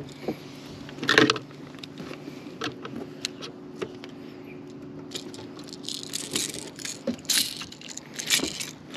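Fishing pliers working the hooks of a lime-green lure out of a bass's mouth: repeated metallic clicking and jangling of hooks and pliers, busiest in the second half, over a steady low hum.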